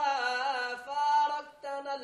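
A man singing solo without accompaniment in a melismatic Arabic style, holding long notes that waver and bend in pitch, with a short break between phrases just past the middle.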